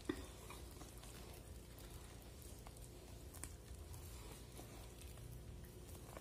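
Wire hand whisk stirring thick cake batter in a plastic bowl: faint squishing with a few light clicks of the wires against the bowl, the sharpest just at the start, over a low steady hum.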